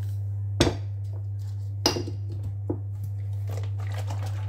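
A glass jar being handled and set down on a wooden table: three sharp knocks and clinks, the loudest about half a second in. A steady low hum runs underneath.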